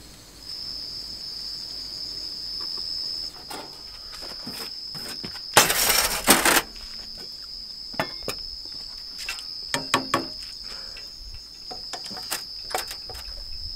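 Crickets trill steadily in a high, unbroken tone. Over them come scattered clinks and taps of cooking utensils and a saucepan lid. A loud noisy rush lasting about a second comes about six seconds in.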